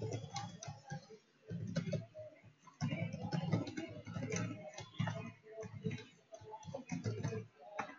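Typing on a computer keyboard, in short runs of keystrokes with brief pauses between them.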